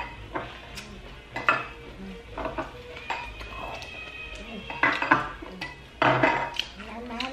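Close-miked eating: crisp lettuce leaves crinkling as they are folded around peeled prawn, and chewing, in a string of short, sharp crunches and clicks.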